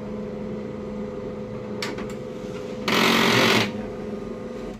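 HP LaserJet M1005 MFP laser printer running a copy job: a steady motor and gear hum, a couple of clicks about two seconds in, then a loud harsh grinding burst about three seconds in that lasts under a second. The noisy gears go with the repeated paper jams that the owner puts down to a worn paper pickup assembly.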